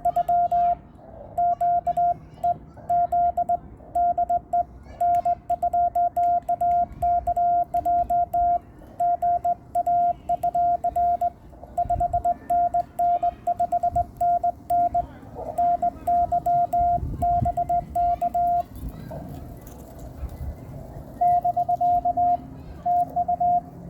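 Amateur radio Morse code (CW): a single steady beep tone keyed on and off in quick dots and dashes. The keying stops about 19 seconds in and starts again a couple of seconds later.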